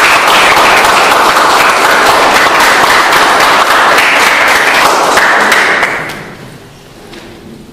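Audience applauding, a dense run of clapping that dies away about six seconds in.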